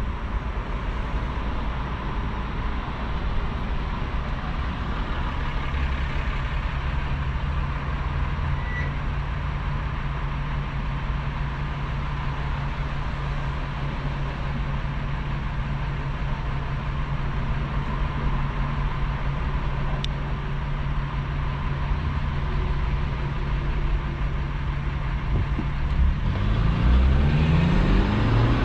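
Car driving: steady engine and road noise with a low hum. Near the end the engine note rises and gets louder as the car speeds up.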